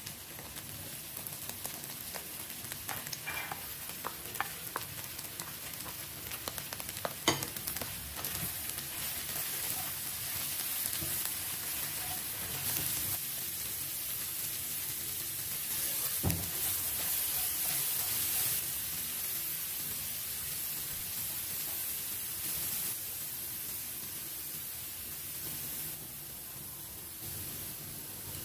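Lamb, onion and julienned carrots sizzling in a steel pan while a wooden spatula stirs and scrapes through them, with scattered clicks and one sharp knock about seven seconds in.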